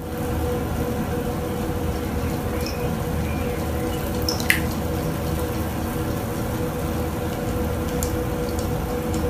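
Aquarium water trickling and dripping over a steady hum from a tank pump or filter, with one sharp click about four and a half seconds in.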